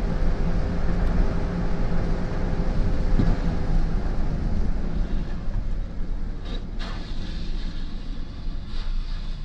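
Steady low rumble of road and engine noise inside a moving vehicle's cab, as picked up by a dashcam, with a couple of brief crackles about two-thirds of the way through and again near the end.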